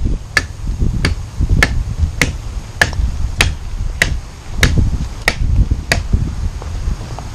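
Hand-forged kukri chopping hard driftwood: about ten sharp, evenly paced blows, a little under two a second, over a low rumble.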